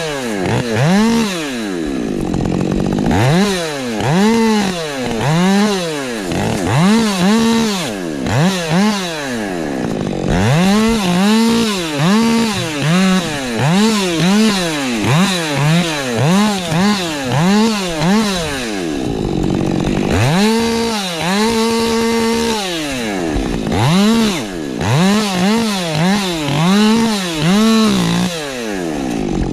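Husqvarna 550 XP Mk II two-stroke chainsaw revved up and down over and over, about once a second, its pitch rising and falling each time, now and then held briefly at full revs and dropping back a few times to a lower running note.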